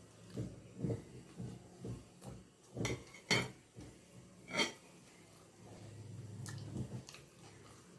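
Close-up mouth sounds of a man chewing a soft bread-bun snack, with sharp clinks of a steel plate three times, near three seconds in and again past four seconds.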